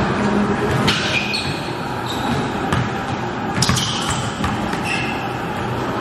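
A basketball being dribbled on a hard gym floor, a few irregular bounces that echo in the large hall, with short high sneaker squeaks in between.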